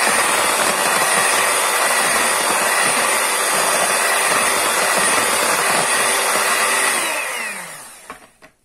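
Electric hand mixer running steadily, its beaters whisking thin crepe batter in a bowl. About seven seconds in it is switched off, and its whine falls in pitch as the motor winds down, ending with a small click.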